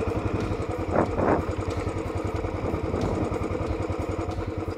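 Royal Enfield Classic 500's single-cylinder engine running at low speed, a steady even thumping.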